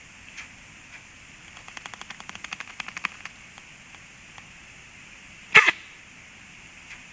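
Black stork chick sneezing once, a short sharp burst about five and a half seconds in. A couple of seconds earlier comes a rapid run of soft clicks, roughly a dozen a second.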